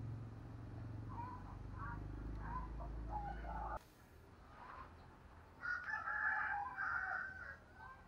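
A rooster crowing once, about two seconds long, starting about five and a half seconds in. Before it there are faint short bird chirps over a low hum that cuts off abruptly near the middle.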